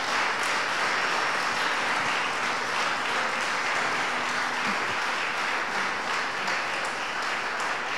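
A congregation applauding steadily, easing off slightly near the end.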